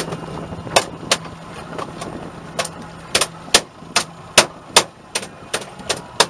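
Sharp, uneven knocks and clacks on a boat, two or three a second, over the low hum of an idling outboard motor that drops away about halfway through.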